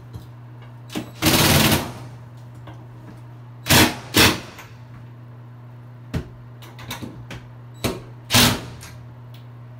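Cordless drill/driver running in five short bursts, the first and longest about a second in, then two pairs, as it drives the shelf bracket's mounting screws into the wall.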